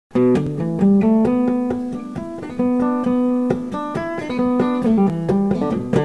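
Music: a guitar intro of quick single picked notes, one after another, over a lower bass line.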